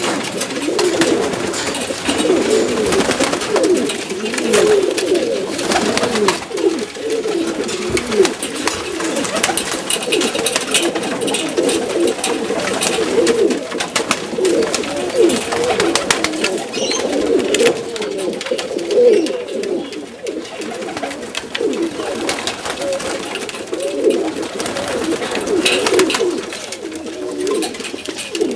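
Many Macedonian Donek pigeons cooing at once in a continuous overlapping chorus, with scattered sharp clicks.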